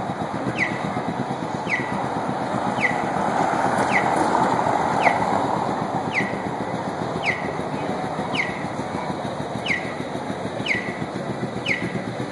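A short chirp that falls in pitch repeats evenly about once a second over a steady background of outdoor noise.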